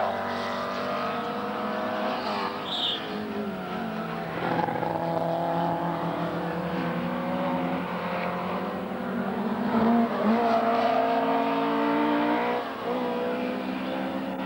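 Engines of several small racing saloon cars running hard as they lap a circuit, several engine notes overlapping and rising and falling in pitch.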